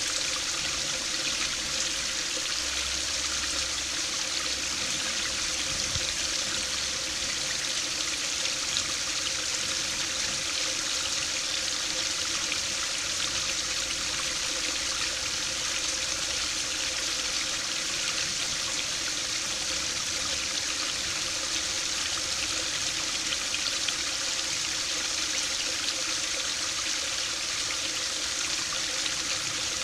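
Small stream pouring over a low weir into a pool: steady splashing and trickling of falling water.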